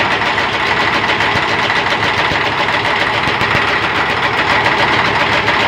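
Crane engine running steadily, with its freshly repaired water pump (new bearings and mechanical seal) turning on the belt drive. A steady high whine sits over the engine's fast, even beat.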